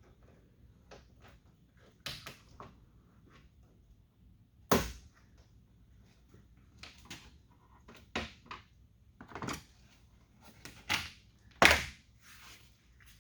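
Plastic door trim being pried off a pickup truck door: scattered clicks and knocks of the retaining clips and trim tool, with sharp snaps about five seconds in and near the end as clips pop loose.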